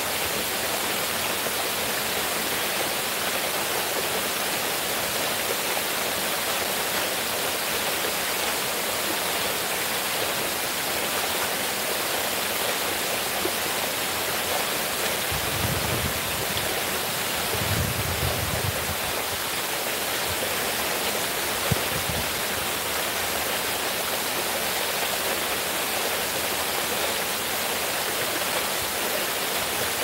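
Water from a stepped cascade fountain spilling down its tiers and splashing into the pool below: a steady rushing. A few brief low rumbles come about halfway through.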